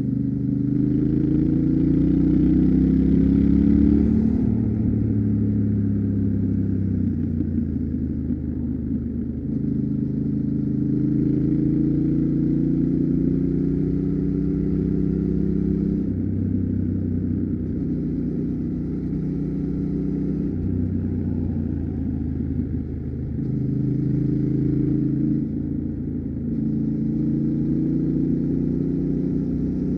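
Yamaha Ténéré 700's parallel-twin engine pulling the bike along, its note climbing under throttle and dropping back at gear changes or when the throttle is eased, several times over.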